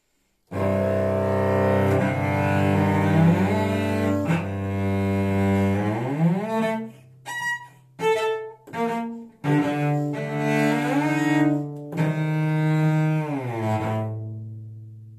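Solo cello playing the frog music: long bowed low notes that slide in pitch, then a run of short, separate notes in the middle imitating a frog's ribbit, then more held, sliding notes that die away near the end.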